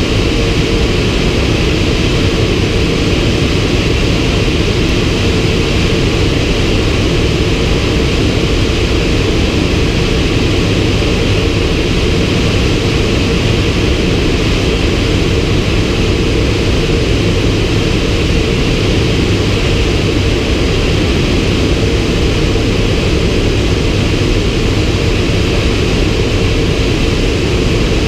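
Turbine Thrush crop-spraying plane's turboprop engine and propeller running at steady power, heard from inside the cockpit as a loud, unchanging drone.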